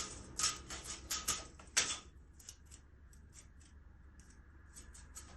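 A rapid run of light clicks or taps, about four or five a second, louder for the first two seconds and then fainter and sparser.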